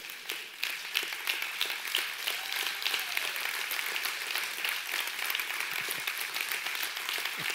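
Congregation applauding, a steady spread of many hands clapping.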